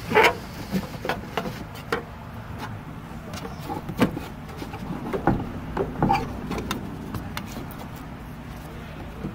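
Irregular clicks, taps and knocks of a metal hand tool and hard plastic parts being handled at a van's rear HVAC box, over a steady low hum.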